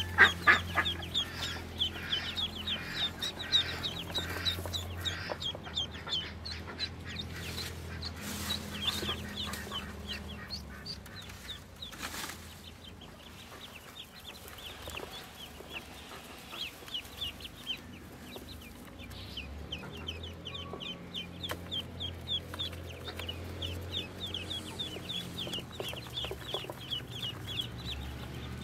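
A brood of newly hatched ducklings peeping: many short, high calls in quick runs, which thin out for a few seconds in the middle and then pick up again. A few brief rustles come from the straw nest as a hand handles the chicks.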